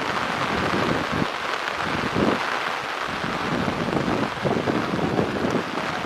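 Heavy rain falling on open water, a steady dense hiss of drops striking the surface, with irregular low gusts of wind rumbling through it.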